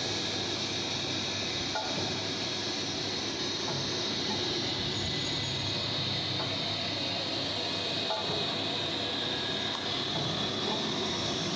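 Steady, even noise of a street-food stall's cooking station, where flatbreads cook on a large flat griddle, with a couple of faint knocks.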